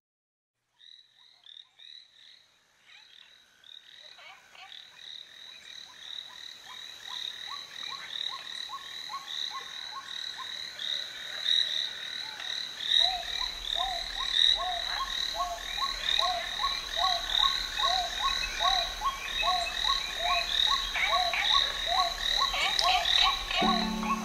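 A chorus of frogs croaking, many short calls repeating over and over, fading in from silence and growing steadily louder. A low held musical note comes in just before the end.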